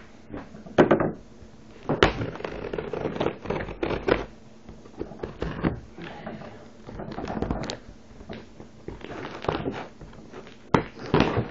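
Irregular knocks, clicks and rustling of objects being handled and shifted about, as someone hunts for a sharp tool to open a package.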